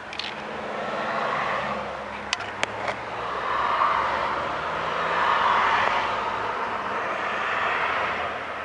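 A 6.5 L turbo-diesel Chevrolet Suburban engine being cranked on the starter during another attempt to start a hard-starting engine. The sound starts with a click, swells and fades several times over about eight seconds with a low hum underneath, and has a few sharp clicks in the middle before dying away near the end.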